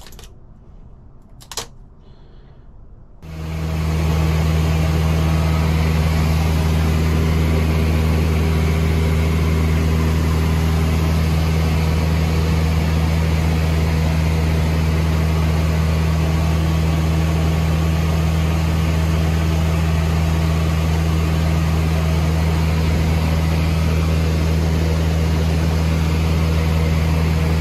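A few faint clicks, then, about three seconds in, a sudden cut to the Cessna 162 Skycatcher's Continental O-200 engine and propeller running steadily at a constant power setting, a loud, unvarying low drone heard inside the cockpit in flight.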